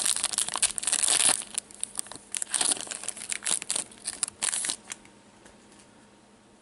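Trading card pack wrapper crinkling and tearing as it is opened with gloved hands: a dense burst of crackles, then scattered lighter crinkles that stop about five seconds in.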